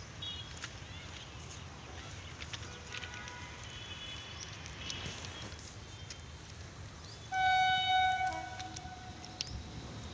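WAP-4 electric locomotive horn giving one steady high blast of about a second and a half, a little past halfway through. Birds chirp before it.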